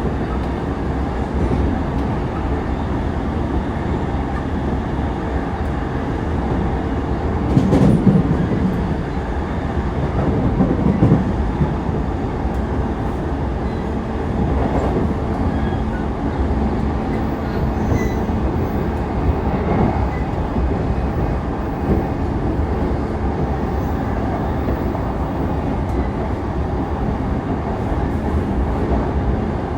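Running noise of an E233-3000 series electric multiple unit, heard from inside the car: a steady rumble of wheels on rail with occasional clicks over rail joints. The rumble swells louder twice, about 8 and 11 seconds in.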